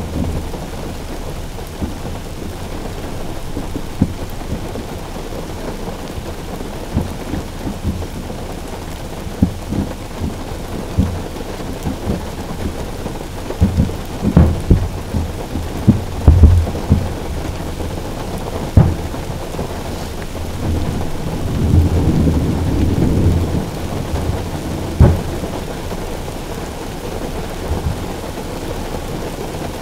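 Steady rain beating on a car roof, with sharp booms scattered through from fireworks and thunder during a thunderstorm, and a longer rolling rumble about two thirds of the way in.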